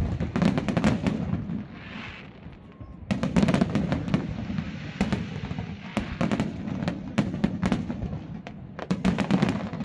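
Fireworks display: clusters of sharp bangs and crackling shell bursts in quick succession, with a brief lull about two seconds in and another dense spell of crackling near the end.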